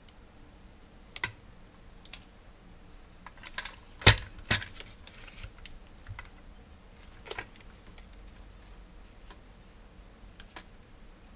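Irregular clicks and taps from handling the opened plastic pump housing and clipping wire leads onto its motor terminals, the loudest a sharp knock about four seconds in. The pump's motor is not running.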